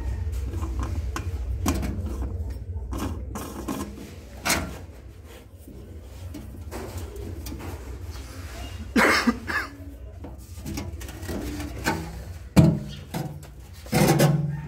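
Scattered knocks, clicks and scrapes of a drain strainer being pressed and worked into a stainless steel sink's outlet by hand. A low rumble fades in the first few seconds, and the sharpest knocks come about nine and twelve and a half seconds in.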